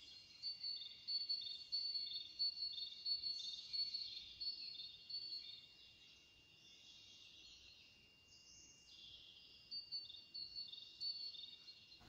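Insects chirping faintly in high-pitched, rhythmic pulses. The chirping stops about halfway through and starts again near the end.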